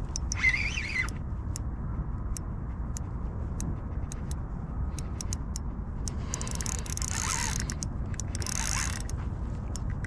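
Light, irregular mechanical clicks over a steady low rumble of wind on the microphone. Two brief rustling scrapes come about six and eight and a half seconds in.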